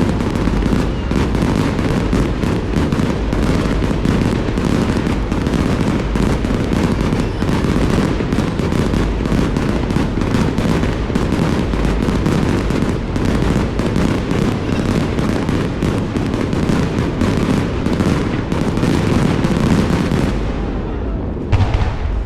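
Fireworks display going off in a dense, continuous barrage of bangs and crackles, many bursts a second. It stops abruptly about twenty seconds in, followed by a couple of lone bangs.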